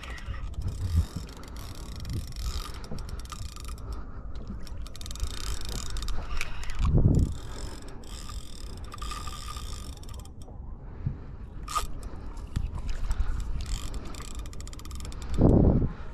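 Spinning fishing reel being cranked in several short spells, its gears giving a fine ticking rasp. Two dull low thumps come about seven seconds in and near the end.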